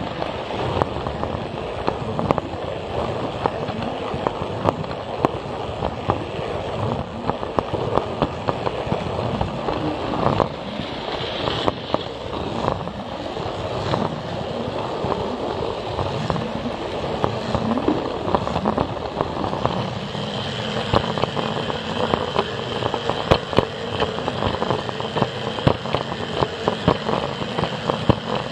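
Plarail toy train running along plastic track, a dense rapid clatter of clicks from wheels and rail joints under a motor hum. A thin steady high whine joins about twenty seconds in.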